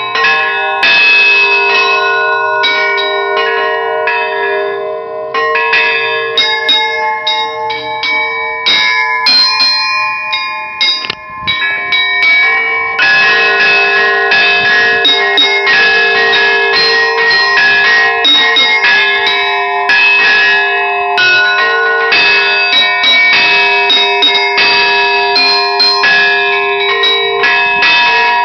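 Russian Orthodox church bells ringing a full peal: small high bells struck in quick succession over lower bells whose tones ring on and overlap, with a brief lull about eleven seconds in.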